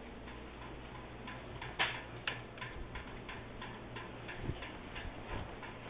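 Hunter Brookline ceiling fan running, with a steady motor hum and a regular ticking at about three ticks a second. One sharper, louder click comes just under two seconds in.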